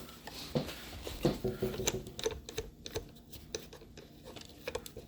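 Irregular light clicks and taps of hands handling a Roomba robot vacuum's plastic body and wheels.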